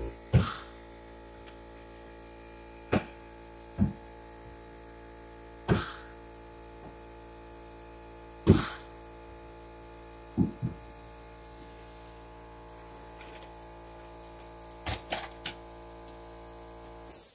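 Steady low electrical hum with many evenly spaced overtones. About a dozen sharp clicks and knocks are scattered through it.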